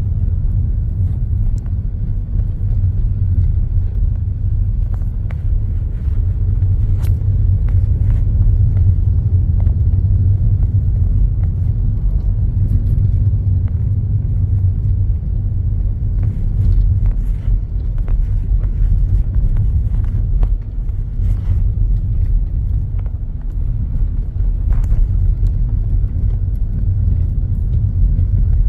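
A car driving over a rough, patched road: a steady low rumble of tyres and engine, with scattered small knocks and rattles.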